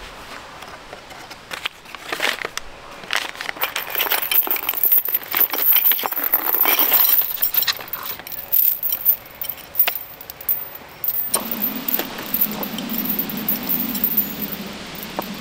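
Blacksmith-made iron chain and hook clinking and jangling while they are unpacked from a cardboard box, with brown packing paper rustling. About eleven seconds in, this stops abruptly and a steady low hum takes over.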